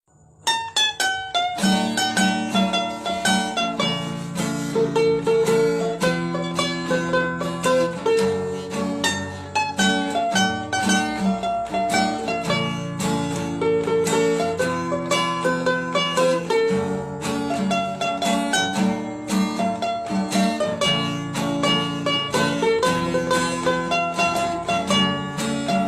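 Background music: an upbeat tune of quickly plucked string notes over a steady bass line.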